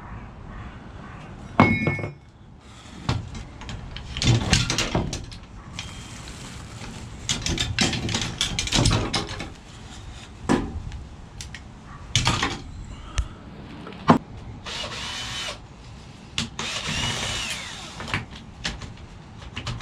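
Scrap copper and brass pieces being handled and sorted: irregular metal clanks and knocks with scraping and rattling in between.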